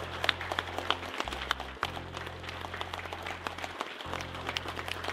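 A crowd of people clapping, a dense irregular patter of hand claps, over background music with low bass notes that change every second or two.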